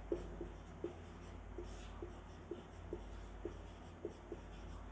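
Marker pen writing on a whiteboard: faint short strokes and squeaks of the tip, about two a second, over a low steady hum.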